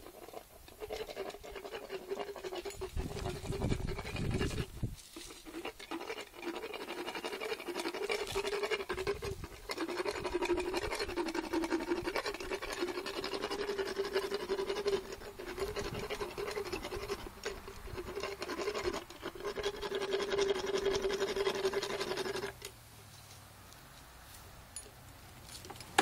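An equine dental float grinding down a horse's molars, inside the mouth held open by a speculum: a steady, pitched rasping grind that stops abruptly near the end.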